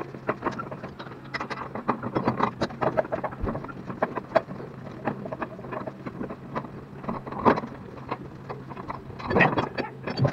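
Irregular clicks, taps and scraping of a shower mixer valve and its pipe fittings being handled and worked into place, over a steady low hum. There are louder scrapes about seven and a half and nine and a half seconds in.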